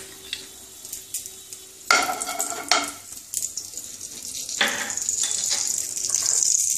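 Lumps of ghee melting in hot mustard oil in a nonstick wok, crackling and sizzling, with the sizzle growing louder in the second half. A utensil knocks against the pan a couple of times about two seconds in.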